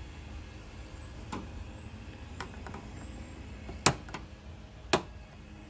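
Light clicks of parts being handled inside a car door, then two sharp snaps about four and five seconds in as a swung-back part locks into place.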